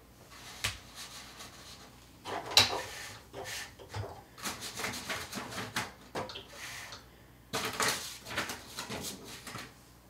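Platen knob of a Triumph Adler Satellite 3 electronic typewriter turned by hand, giving irregular clicks and rattles. The paper will not feed because the paper release lever is unlocked.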